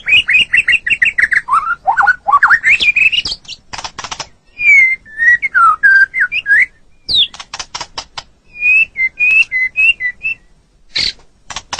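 White-rumped shama (murai batu) singing a varied song of clear whistled notes that slide up and down, mixed with quick runs of sharp clicking notes, with short pauses between phrases.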